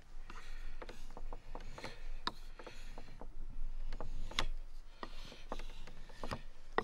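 Carbon steel knife blade stroked back and forth across a wet 6000-grit Japanese water stone coated in slurry: a soft wet scraping with irregular light clicks as each stroke starts and ends.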